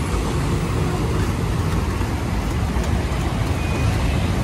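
Heavy diesel machinery running steadily: the engines of a dump truck and an excavator working beside a trench, a low, even noise with no breaks.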